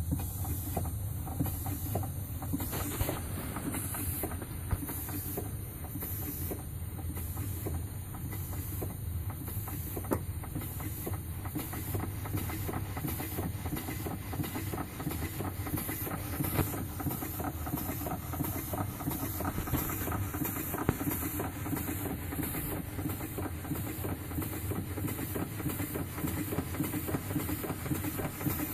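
Model Murdoch Aitken table steam engine running steadily: a hiss of steam with a fast, even mechanical beat.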